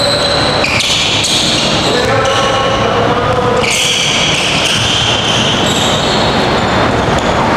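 Basketball dribbled on a hardwood gym floor.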